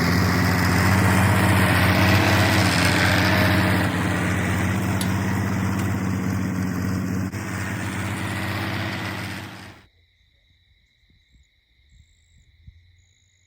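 An engine running steadily, then cut off abruptly about ten seconds in.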